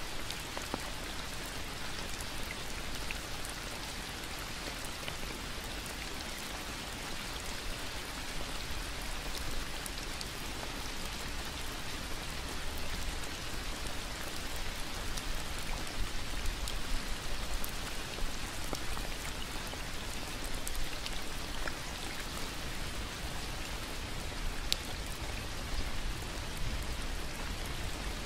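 Steady rain falling on foliage and a wet paved path, with single drops ticking now and then.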